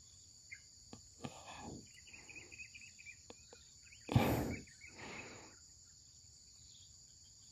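Insects shrilling steadily in a high, even drone, with a few soft bird chirps about two seconds in. A short breathy rustle comes just past four seconds in, louder than the rest, with a fainter one after it.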